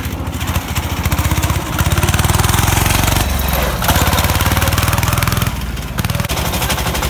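Diesel engine of a diesel-swapped Ford garden tractor running as the tractor drives, a fast even chugging pulse. It grows louder for a few seconds as the tractor comes close, then eases off as it moves away.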